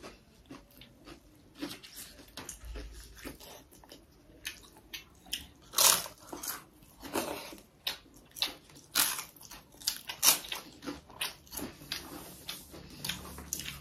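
A person chewing and biting into pork curry with rice, with irregular wet smacks and sharp crunches, the loudest about six and ten seconds in.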